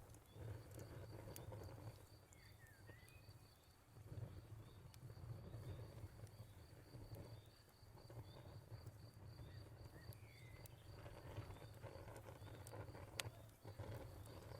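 Crackling fire mixed with a cricket chirping in a steady high pulse. Two short bird calls come in, one early and one about two-thirds through. Soft fire pops and a low rumble run underneath, with one sharper pop near the end.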